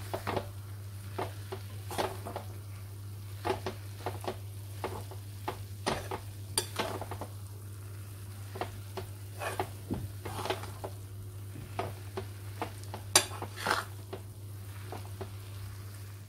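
A spatula stirring and scraping grated coconut in sugar syrup around a kadhai, with irregular scrapes and knocks against the pan, as the coconut barfi mixture is cooked down to thicken. A steady low hum runs underneath.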